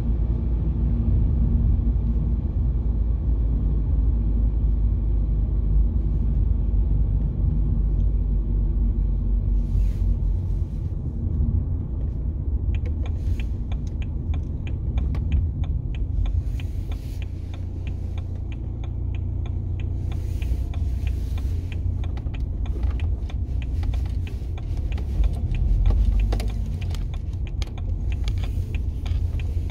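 Car driving, heard from inside the cabin: a steady low rumble of engine and road noise. From about halfway, a dense scatter of small clicks and crackles joins it, thickening near the end as the tyres roll over gravel.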